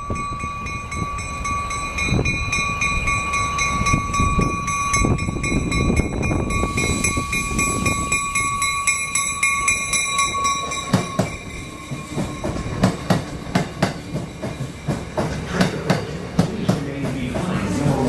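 Train running through the station, with a steady high whine for the first part. It is followed from about twelve seconds in by a quickening series of wheel clicks over the rail joints.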